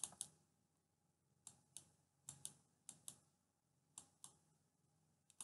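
Faint, scattered light clicks, often in pairs, from handwriting being put on a digital whiteboard stroke by stroke.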